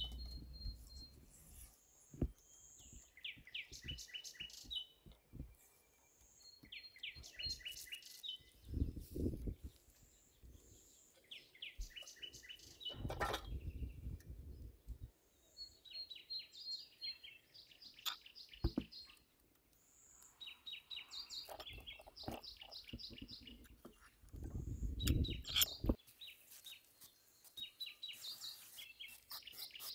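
A songbird sings repeated short phrases of quick high notes every few seconds. Occasional low thumps and clicks come through, loudest three times.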